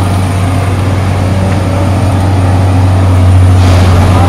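Steady low drone of idling engines from vehicles held up in traffic, with street noise above it. It gets slightly louder near the end.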